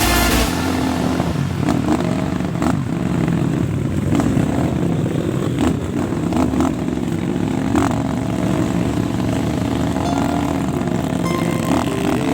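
Small trail motorcycle engines running at idle with a slightly wavering note, and a few short clicks over them.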